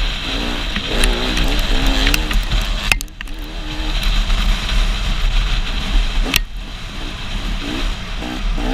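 Dirt bike engine revving up and down as it is ridden hard, with heavy wind rushing over the microphone. The engine note wavers in pitch and the sound drops off briefly about three seconds in and again just past six seconds, as the throttle comes off.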